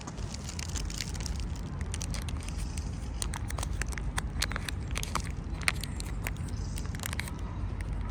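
A squirrel gnawing and cracking food, a run of quick, irregular crunching clicks, over a low steady rumble.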